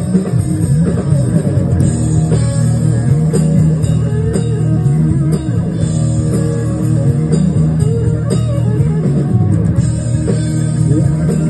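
Live rock band playing: electric guitars over bass guitar and drums, loud and continuous.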